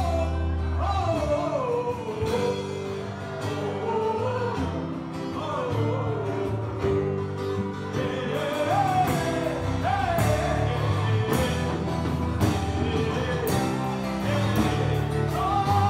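Live gospel band music: a solo voice sings a sliding, ornamented melody over sustained keyboard and bass chords, with drum hits growing stronger from about halfway through.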